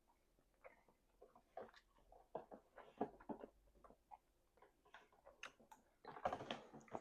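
Close-miked messy chewing: irregular wet mouth smacks and clicks, getting busier, with a denser, louder burst of smacking near the end.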